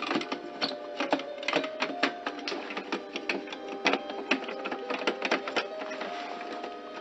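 Hard plastic printer parts clicking and clattering as they are handled and fitted into a Kyocera printer, in many sharp irregular clicks.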